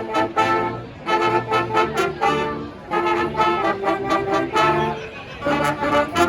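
Live brass band playing a funky horn riff: trumpets and trombones in short, repeating phrases with brief gaps between them, over low bass notes.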